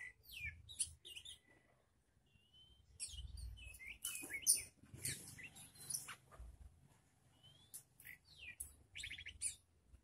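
Songbirds chirping and calling: short whistled notes and downward-sliding calls, a few harsh scratchy notes in the middle, and a quick rattling trill near the end.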